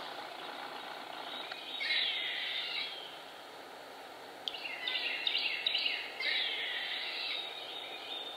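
Eastern gray squirrel giving its mournful distress call after being pursued by a barred owl. The calls come in three bouts: about two seconds in, again around four and a half seconds, and once more from about six seconds.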